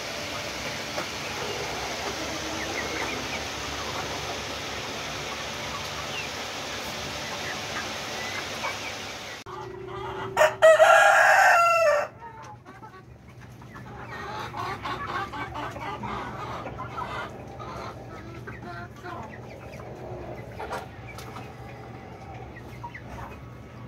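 Young Light Sussex chickens in a flock: a steady hiss with faint peeping, then about ten seconds in a young cockerel crows once, loud and about a second and a half long, followed by the flock's clucking and chattering.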